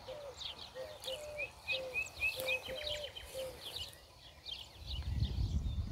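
Birds calling: a run of short, repeated low notes over higher, quick chirps. A low rumble comes in near the end.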